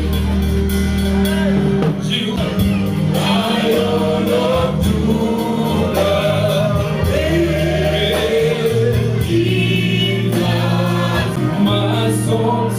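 Gospel praise music: singing voices over a band with held bass notes and a steady drum beat.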